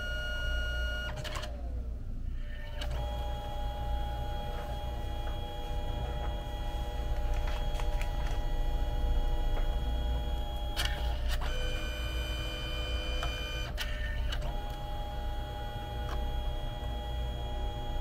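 Canon Selphy CP1300 dye-sublimation photo printer at work, its feed motor giving a steady whine over a low hum. About a second in the whine slides down and stops, then starts again at a different pitch. There are clicks and shifts in pitch around eleven and fourteen seconds as the paper feed changes.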